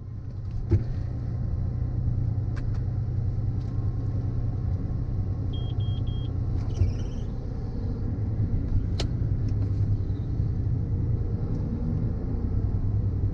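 Combine harvester's diesel engine running steadily, a low rumble heard from inside the cab, with a few light clicks. Three short beeps come about halfway through.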